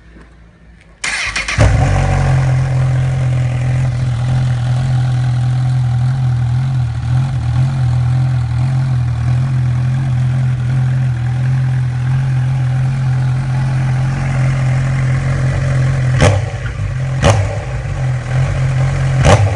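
Honda CB1000R's inline-four engine through an aftermarket sport exhaust, started about a second in: a brief crank, then it catches and settles into a steady idle. Near the end, three or four quick throttle blips.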